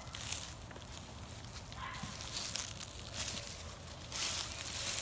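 Footsteps crunching and rustling through dry fallen leaves, in uneven bursts.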